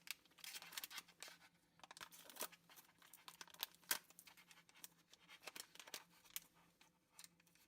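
Faint, irregular crinkling and small clicks of a tightly sealed plastic bag being handled and pulled at to get it open.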